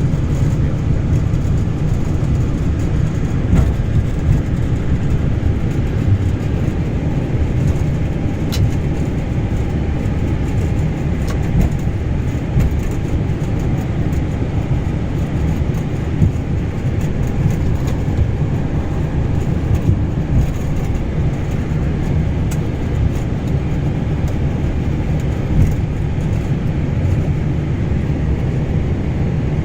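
Steady low rumble inside an Airbus A320 cockpit as the airliner rolls along the ground after landing: wheels on the pavement and engines at idle, with a few faint clicks.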